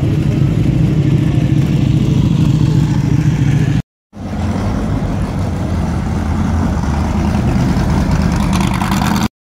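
Car engines as cars drive slowly past: first a steady low engine note as a classic Mini goes by, then, after an abrupt break about four seconds in, a red open-cockpit race car's engine passing, growing louder near the end.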